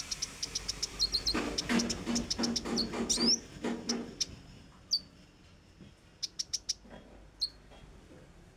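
A konin songbird singing: a fast run of short, sharp high notes, about six a second, then louder scattered notes and chips with a few upward-sweeping whistles. Between about one and four seconds in, a lower, rough pulsing sound runs under the song. Later there are single sharp notes and a quick burst of four.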